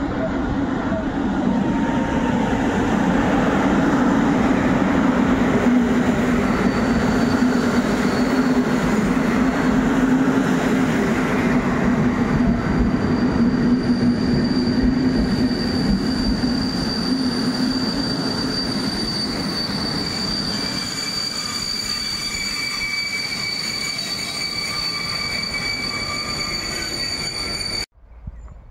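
EP07 electric locomotive and its passenger coaches rolling past close by: a loud, steady rumble of wheels on rail, loudest as the locomotive goes by, with a high, steady squeal from the running gear ringing through as the coaches follow. The sound cuts off suddenly near the end.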